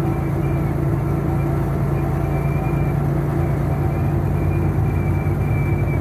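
Semi-truck's diesel engine and tyre noise droning steadily inside the cab while driving on the highway.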